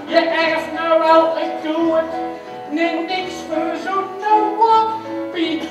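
Music: a melody of held notes over a low bass line, with a regular beat.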